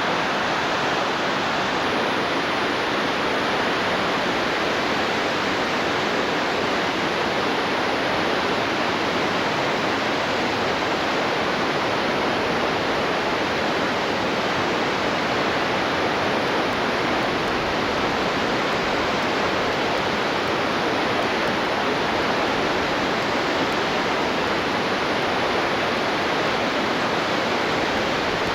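Floodwater pouring through Baldhill Dam's spillway at very high flow: a steady, unbroken rush of water.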